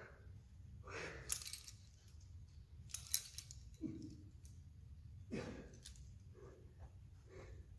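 A few light metallic clinks of climbing gear, carabiners and rope hardware, about one and three seconds in. Two short vocal sounds falling in pitch come from a person about four and five seconds in.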